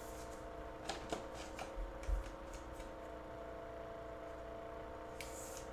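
Trading cards being handled: a few light clicks and rustles in the first couple of seconds, then a short sliding hiss near the end as a card is slid into a clear plastic toploader. A faint steady electrical hum runs underneath.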